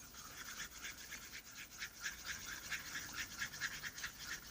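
Glue and laundry-detergent slime being stirred by hand in its container: quick, irregular scraping and smearing strokes, several a second, as the mixture starts to thicken into slime.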